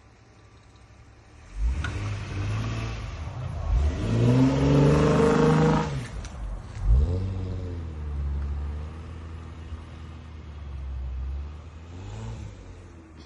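Motor vehicle engine revving, rising in pitch twice around the middle, then running steadily with a smaller rev near the end.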